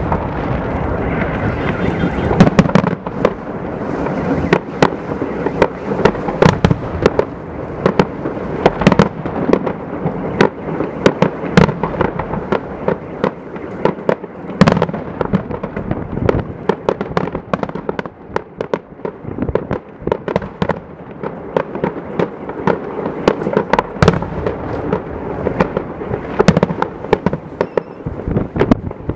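Fireworks display: aerial shells bursting in quick, irregular succession, many sharp bangs over a continuous rumble.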